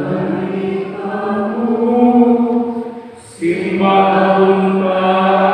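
Sung Good Friday liturgical chant for the showing of the cross, in Cebuano: long held notes in one phrase, a short break about three seconds in, then a louder second phrase.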